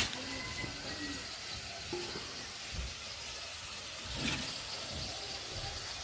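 Potato pieces frying in hot oil: a steady soft sizzle, with a couple of light clicks.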